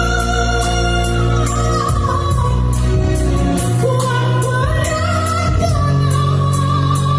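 A Gayo song: a female singer's held, gliding melody over a band backing with a steady bass and a regular beat of about three ticks a second.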